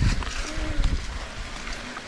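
Mountain bike riding over rough trail: tyres rolling and the bike knocking and rattling, with wind on the microphone and a heavy low rumble.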